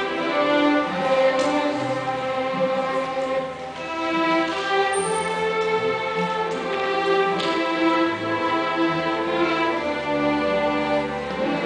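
Student string orchestra playing: violins, cellos and double basses bowing held notes that move from chord to chord without a break.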